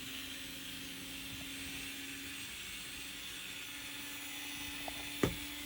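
Faint steady hum and hiss of room tone, with a single sharp click about five seconds in.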